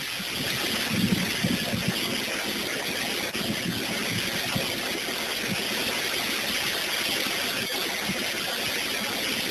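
Strong storm wind blowing: a dense, steady rushing noise that starts abruptly.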